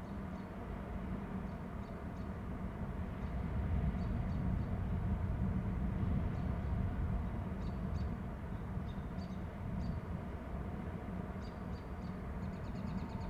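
Steady low rumble with faint, short high chirps now and then, and a quick rapid trill near the end.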